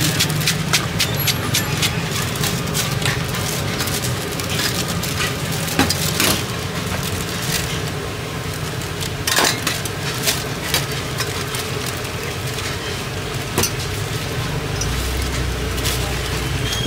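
Stainless steel kitchenware clinking: a ladle and a wire noodle strainer knocking against a steel pot and small steel cups in irregular sharp clinks, over a steady low background hum.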